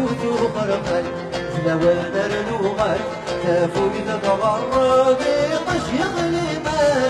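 Live Kabyle folk song: a man's solo singing voice over strummed acoustic guitars.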